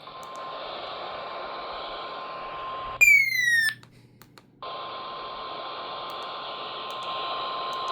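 NOAA Weather Radio warning alarm tone: a steady single high tone over radio static, heralding a severe thunderstorm warning. About three seconds in, a loud falling electronic tone cuts across it for under a second. The audio then drops out for about a second before the static and the alarm tone return.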